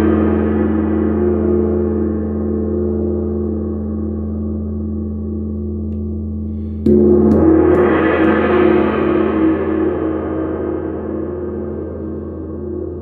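Kingdo handmade 65 cm wind gong ringing with a long, slowly fading wash of many tones. It is struck again about seven seconds in, and its upper shimmer swells for a moment after that stroke before dying away.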